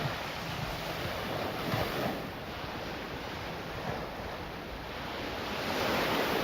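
Steady rushing of wind and ocean surf, with wind buffeting the microphone.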